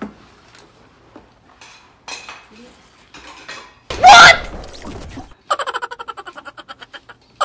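Chopsticks clicking faintly against a plastic takeout bowl. About four seconds in comes a sudden, very loud burst of noise lasting about a second, then rapid pulsed laughter near the end.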